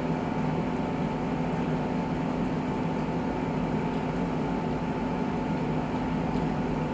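A steady mechanical hum with two constant tones, one low and one higher, that holds level throughout without a break.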